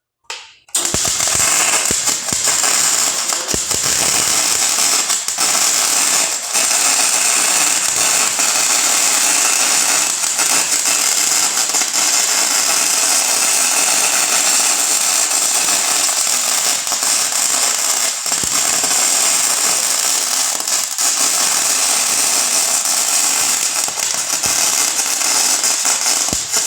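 Snap-on FM140A MIG welder's arc crackling steadily through one continuous weld run of about 25 seconds, starting just under a second in and stopping just before the end. The work is galvanized steel, which the welder blames for poor welds and burn-through holes.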